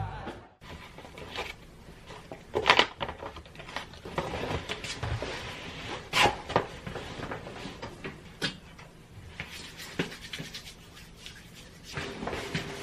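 Rustling and handling of a striped laundry bag and cloth tote bags, with a few sharp knocks and clicks, the loudest two about three and six seconds in.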